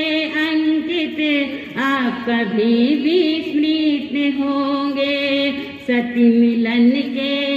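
A Jain nun's solo voice singing a slow devotional chant, holding long notes with ornamented turns and pausing briefly for breath twice.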